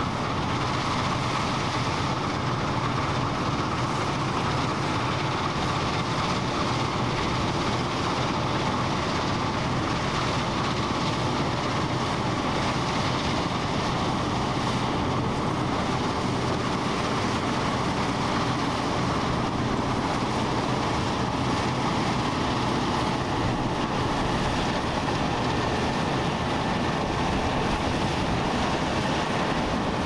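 CLAAS Mega 204 combine harvester running as it cuts and threshes wheat: a steady diesel engine note under the even rush of the threshing machinery.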